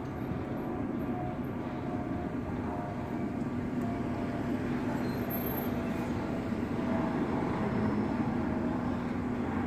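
Steady car engine hum with street traffic noise, slowly growing louder as a car approaches near the end.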